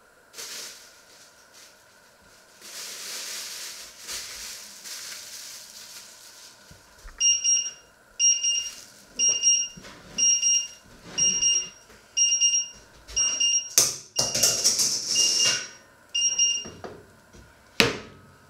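Electronic kitchen timer alarm beeping, a shrill short beep about once a second, about ten times. Over the last beeps there is a clatter of handling, and a single sharp knock near the end.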